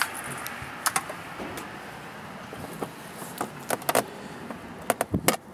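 Scattered plastic clicks and knocks as a GPS tracker's cable connector is pushed and twisted onto a truck's 9-pin diagnostic connector, with a quick run of clicks near the end, over a steady background hiss.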